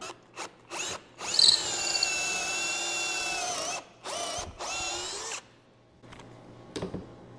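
Cordless drill with a stepped pocket-hole bit boring into a clamped hardwood block through a jig's guide hole. It gives three short trigger blips, then a steady motor whine for about two and a half seconds, then two shorter runs before stopping.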